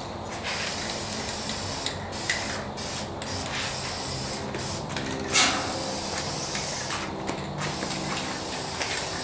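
Aerosol spray can of high-temperature Rust-Oleum paint hissing in a run of sprays with short breaks between them, one of them louder about halfway through.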